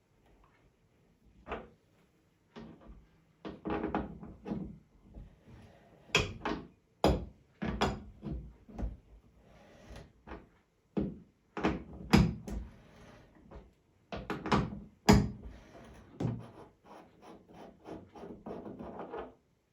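Hand tools and metal tap parts being handled: irregular knocks, clicks, clanks and scrapes, with the sharpest clanks about twelve and fifteen seconds in.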